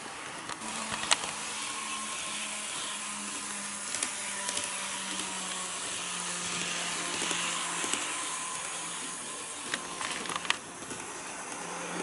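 HO-scale model train running on track: a steady motor hum that drifts slightly lower in pitch, under a hiss of wheels on the rails, with a few sharp clicks.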